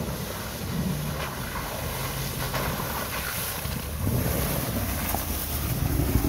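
Ram Power Wagon pickup driving slowly past through mud, puddles and slush: its engine running with tyres splashing and churning in the wet snow, growing louder as it comes alongside near the end. Wind buffets the microphone.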